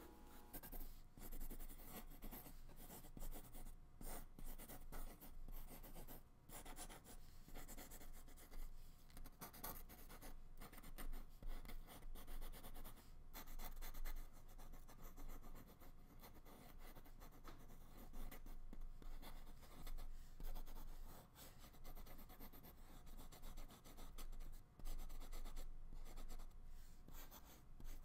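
Soft 6B graphite pencil sketching on paper: faint, irregular scratchy strokes, some short and some drawn out.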